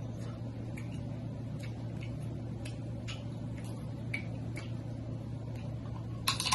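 Snow crab leg shells being cracked and picked apart by hand: scattered light clicks, then a louder cluster of sharp cracks near the end.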